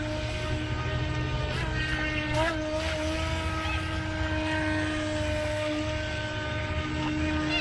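Feilun FT007 RC speed boat's small brushed electric motor whining steadily as the boat runs tight circles on the water. The whine briefly wavers in pitch about two seconds in.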